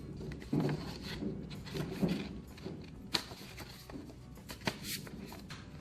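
Soft background music under handling noises from paper and cardboard packaging: irregular rubbing and rustling, with a sharp tap about three seconds in.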